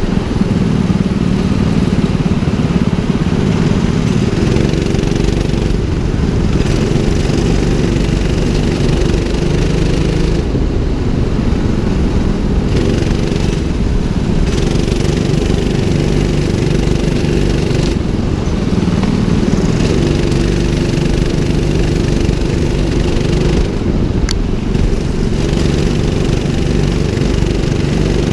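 Go-kart's 200cc engine running under way, its note rising and falling repeatedly as the throttle is opened and eased through the corners.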